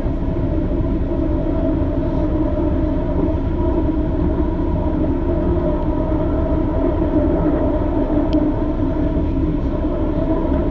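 Detroit People Mover car running steadily along its elevated track, heard from on board: an even rumble of steel wheels on rail under a constant hum of several steady tones from its linear induction motor drive.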